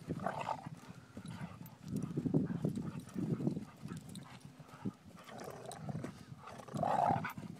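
A Siberian husky and a Vizsla growling at each other while play-fighting, in rough bursts that are loudest about two to three and a half seconds in, with a short higher-pitched sound near the end. It is play growling from both dogs, not a real fight.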